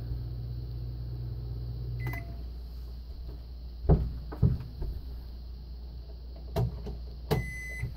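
Microwave oven running on shore power with a steady low hum, fairly silent, that stops about two seconds in with a short beep. A few sharp knocks follow, and a second beep sounds near the end.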